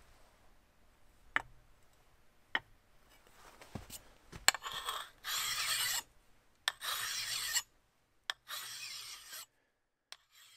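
A hand file stroked across a steel axe bit: three filing strokes in the second half, each a little under a second long, each preceded by a sharp click as the file meets the steel, with a few scattered clicks before them.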